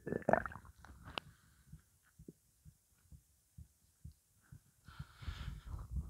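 Hungry, empty human stomach gurgling, with only water in it. There is a cluster of gurgles in the first second, scattered faint pops through the middle, and another gurgle near the end.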